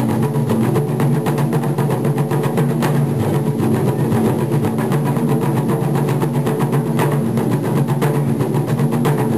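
Taiko drums played by a small ensemble in a fast, dense, continuous rhythm. A louder accented strike stands out about three seconds in and again about seven seconds in.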